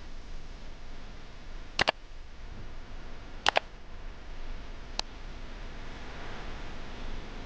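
Computer-mouse click sound effects from a like-and-subscribe button animation: a quick double click about two seconds in, another double click halfway through and a single click about five seconds in, over a steady hiss.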